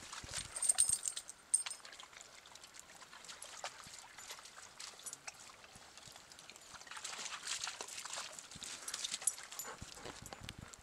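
Dogs splashing and lapping water in a shallow puddle: irregular wet splashes and slurps, busiest about a second in and again around seven to nine seconds.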